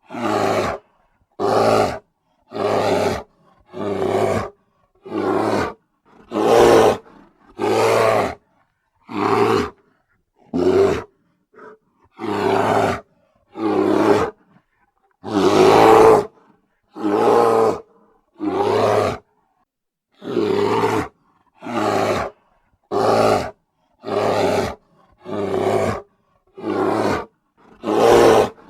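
Bear roaring in a quick series of short roars, about one every second and a half, with silence between them. One roar just past halfway is longer and louder.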